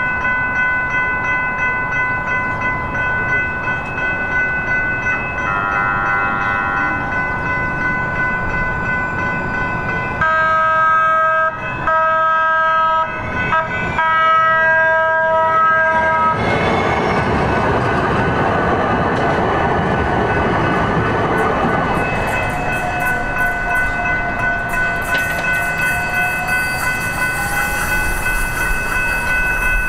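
Railroad crossing signal bells ringing steadily while a light-rail trolley comes through. A short horn sounds about six seconds in, then several long horn blasts with brief gaps from about ten to sixteen seconds. The rumble of the train crossing follows, with a slowly rising motor whine near the end.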